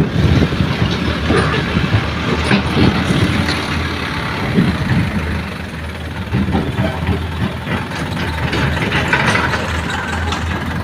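Heavy diesel machinery, an excavator and a dump truck loading soil, with steady low engine noise and scattered short clunks and knocks.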